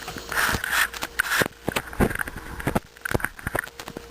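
Handling noise: irregular clicks, knocks and scrapes as small parts and tubing are moved about and set down.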